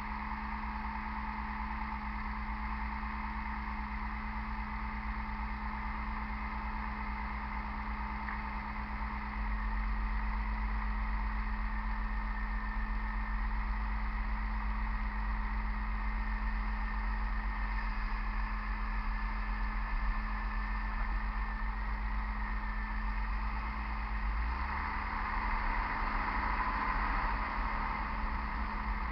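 A 2000 Chevy Blazer 4x4 making a steady grinding drone from the front end, with a level hum under it. The low rumble grows louder about ten seconds in and changes again near the end.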